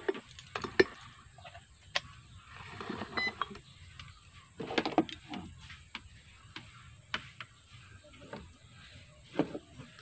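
Scattered light clicks and knocks of a handheld digital multimeter and its test leads being handled and set down, with a faint short beep about three seconds in.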